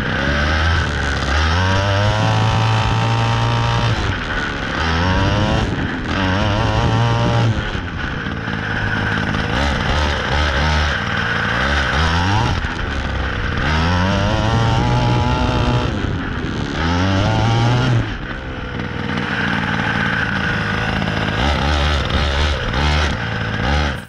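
Primal RC Raminator large-scale monster truck's two-stroke gas engine heard from on board while driving. It revs up and falls back again and again as the throttle is opened and released.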